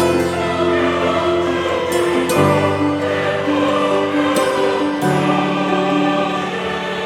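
Background music: a choir singing long held chords over an accompaniment, the chords changing every couple of seconds.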